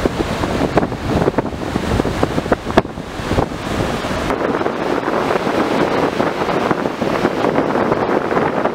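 Wind buffeting the microphone in irregular gusts over the steady wash of surf breaking on the beach.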